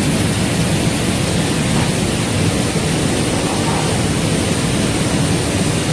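Rice crispy ball production line machinery running: a steady, loud hiss and rumble of conveyors and fans.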